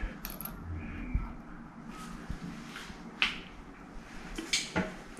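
Scattered small clicks and taps of a metal screw being handled and pushed by hand through a chrome wall plate against tile.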